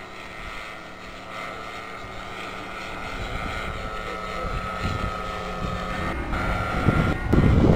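Engine of a large radio-controlled model Sopwith Pup biplane droning in flight, a steady high note that grows louder as the model comes closer, its pitch shifting about six seconds in. Wind buffets the microphone near the end.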